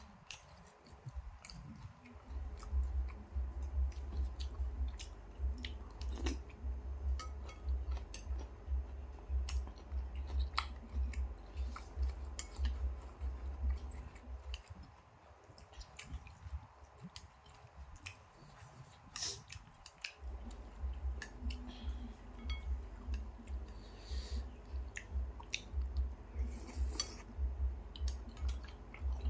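Close-miked chewing of noodle soup: a fast, steady run of deep thumps with scattered small clicks. It stops for several seconds in the middle, then picks up again.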